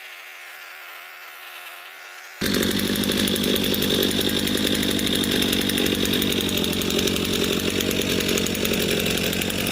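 Gas chainsaw running. For the first two seconds it is faint and thin, then about two and a half seconds in it cuts in loud and runs steadily.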